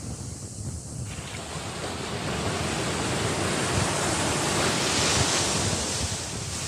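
Surf washing in: a rush of noise that swells from about a second in, peaks near five seconds and then eases, with wind rumbling on the microphone.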